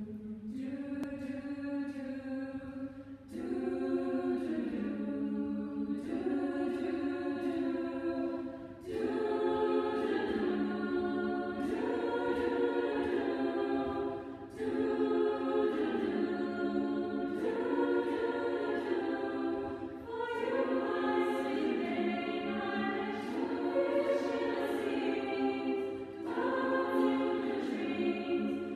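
Girls' choir singing in harmony, in phrases of about five or six seconds each with brief breaks between them.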